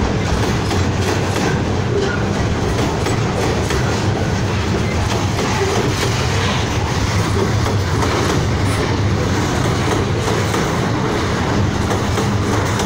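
Freight train of flatcars loaded with steel plates rolling past, the steel wheels running on the rails in a steady, loud rumble.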